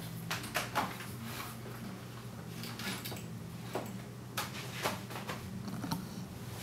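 A Polaroid Land Camera 100 being set down and adjusted on a camera shelf: a scattered series of light clicks and knocks, over a steady low hum.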